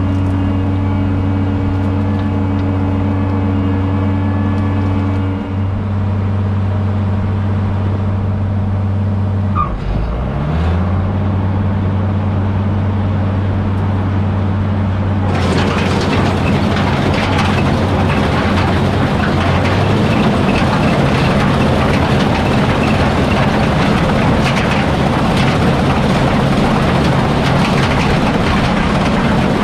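Heavy diesel engine of a harvest machine running steadily; about ten seconds in its pitch sags briefly and recovers. About fifteen seconds in, a loud rushing, rattling noise joins the engine and keeps going.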